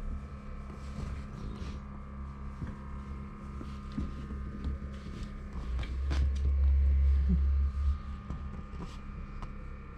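A steady low hum under soft rustling and light scratches from hands rubbing and playing with a kitten on a tiled floor; the low rumble swells louder from about six to eight seconds in.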